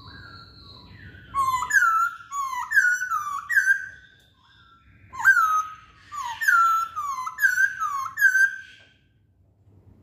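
Masked laughingthrush (poksay Hongkong) singing: two runs of loud whistled notes, each note swooping down and then hooking up, about six to a run, the second run starting about five seconds in.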